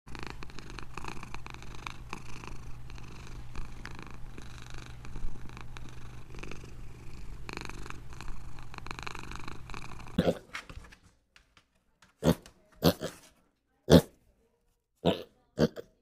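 Domestic tabby cat purring steadily for about ten seconds. Then comes a run of short, separate pig grunts, about six of them, with quiet between.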